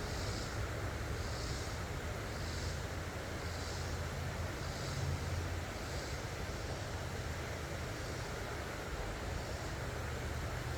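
Steady rush of creek water with wind buffeting a phone microphone, a low rumble underneath. A soft high hiss swells about once a second for the first six seconds.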